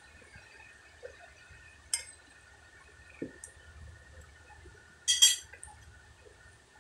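Metal spoon clinking against a plate while rice is scooped and fed: a single sharp clink about two seconds in, and a louder quick clatter of clinks about five seconds in.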